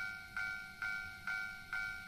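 Japanese level-crossing warning bell ringing, an even electronic ding about twice a second, each stroke fading before the next: the signal that a train is approaching the crossing.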